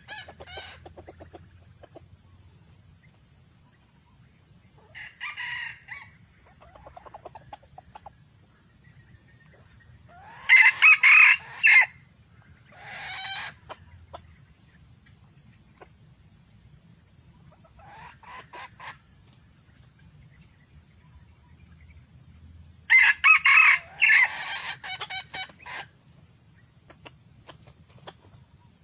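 Junglefowl roosters crowing: two loud bouts of short crows, about ten seconds in and again about twenty-three seconds in, with fainter calls between them. A steady high-pitched whine runs underneath throughout.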